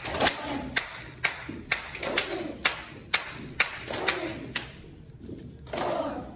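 Hand claps keeping time, about two a second, for a group doing jumping jacks, stopping about two-thirds of the way through. A group of voices calls out counts together every couple of seconds.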